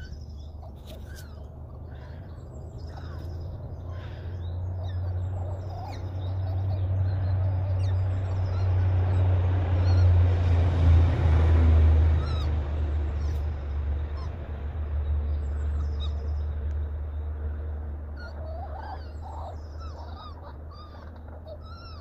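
Outdoor ambience: a low rumble swells to its loudest about halfway through and then fades. Scattered short, high chirps run through it.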